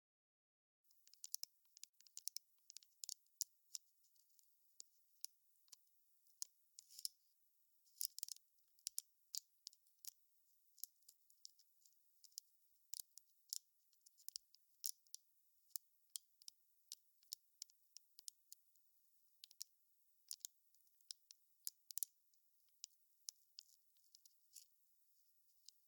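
Wood fire crackling: irregular sharp pops and snaps, several a second, over a faint hiss, starting suddenly about a second in after dead silence.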